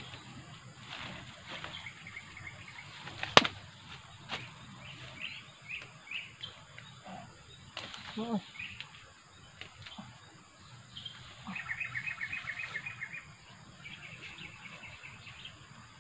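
A machete blade strikes a wooden stick once, sharply, a little over three seconds in, followed by a few lighter knocks. Birds chirp in short, rapid runs of high notes several times.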